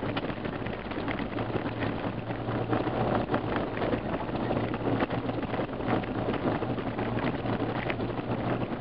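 Four-wheel-drive vehicle driving along a gravel track: a steady low engine drone with the patter and crunch of tyres on loose gravel and scattered small knocks and rattles.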